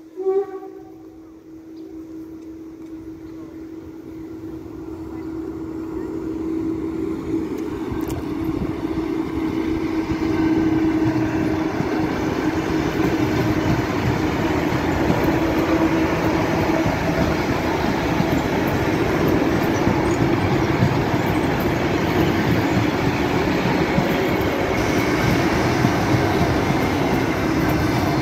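ЭД9М electric multiple unit approaching and passing close by, growing louder over the first ten seconds into a steady rumble of wheels on rails, with a steady hum underneath. A short, loud call with bending pitch sounds at the very start.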